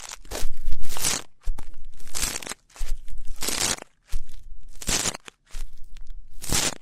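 Close-miked ear-cleaning ASMR scratching: an ear pick scraping and rubbing right at the microphone in about half a dozen crackly strokes, each under a second, with short pauses between.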